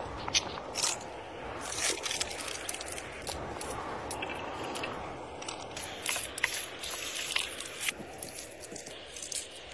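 Food-preparation sounds: scattered taps, clicks and scrapes of a knife and a wooden spoon against a wooden board and bowl, over a steady background hiss.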